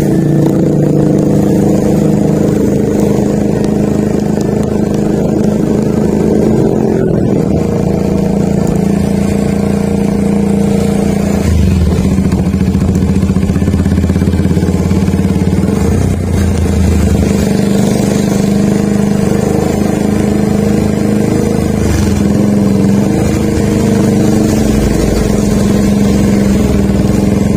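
Motorcycle engine running steadily at cruising speed, heard from the rider's own bike, its note shifting about eleven seconds in.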